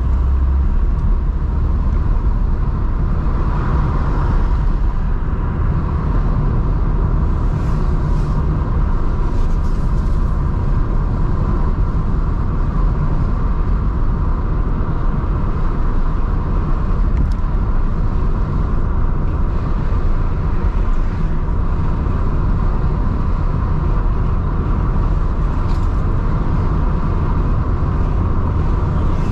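Car driving, a steady low rumble of engine and tyre noise that holds level throughout.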